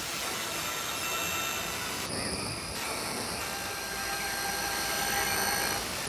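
A steady rumbling, hissing drone with faint high steady tones running through it.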